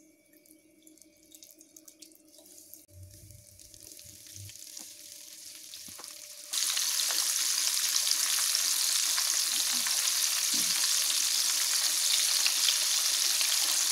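Egg-and-flour-coated paneer fingers deep-frying in hot oil: a faint sizzle builds slowly over the first six seconds, then jumps suddenly to a loud, steady sizzle of several pieces bubbling in the pan.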